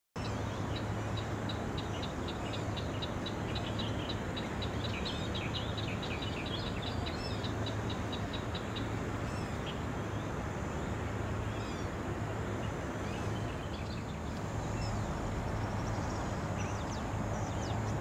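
Outdoor ambience: a steady low rumble and hiss, with small birds chirping. A fast series of short, high chirps runs through the first half, and scattered short whistles follow.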